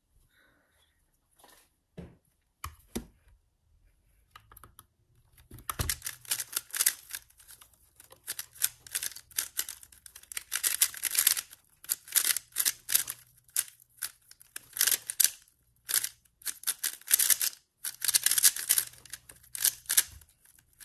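MoYu RS3M 2020 magnetic 3x3 speedcube being turned rapidly in a speedsolve: a fast, continuous clatter of plastic layers clicking, with short pauses, after a few scattered clicks at first. A low thump comes about six seconds in and another just before the end.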